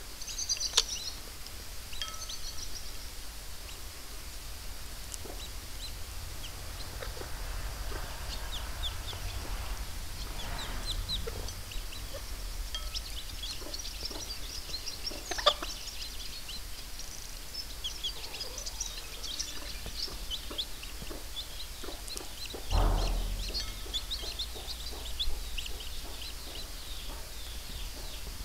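Newly hatched domestic chicks peeping in many short, high chirps beside a brooding hen. A dull thump about three-quarters of the way through is the loudest sound.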